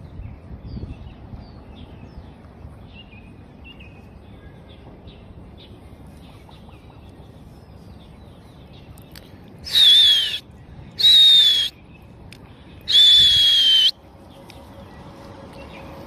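Three loud, high whistled calls, each falling slightly in pitch and lasting about half a second to a second, come close together about ten seconds in. They sound over a low steady outdoor background with faint short chirps in the first few seconds.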